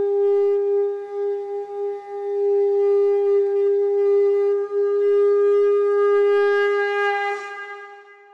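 A conch shell (shankha) blown in one long, steady note, its loudness wavering slightly, fading out near the end.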